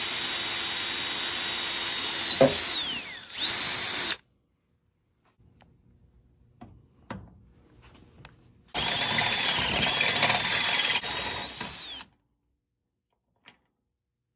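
Electric drill drilling out a hole in the truck cab's sheet metal, in two runs: about four seconds, then about three seconds after a pause with a few small clicks. Partway through the first run the motor's whine drops in pitch as the bit bites, then recovers.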